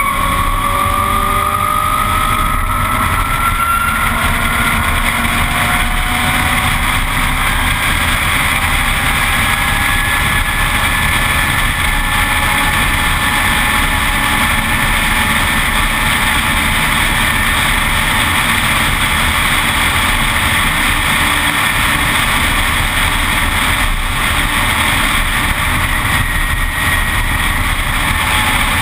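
Zero S ZF9 electric motorcycle at racing speed, recorded by a camera on its own fairing: heavy wind rush over the microphone, with the electric drive's whine rising in pitch over the first few seconds as the bike accelerates, then holding steadier.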